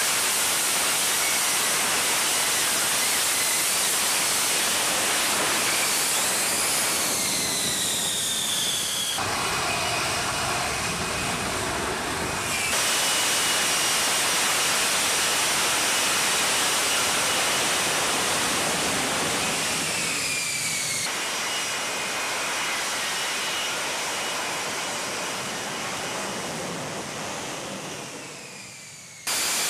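F-35B fighter jet's F135 turbofan engine: loud jet noise with a high whine that drops in pitch twice as the jet passes, fading away near the end.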